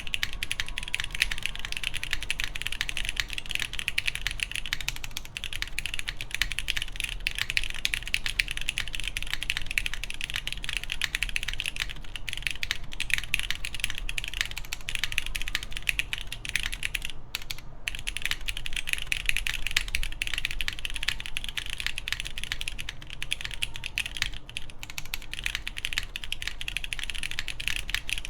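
Continuous fast typing on an Origami TKL mechanical keyboard with lubed, broken-in Cherry MX2A Brown tactile switches, a polycarbonate plate and GMK keycaps: a dense run of soft keystroke clacks, with a very short break about two-thirds of the way through.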